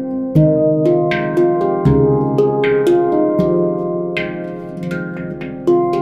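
Veritas Sound Sculpture handpan tuned to an F low Pygmy scale, played by hand: a flowing run of ringing struck notes with crisp finger taps, over two deep bass strikes about half a second and two seconds in.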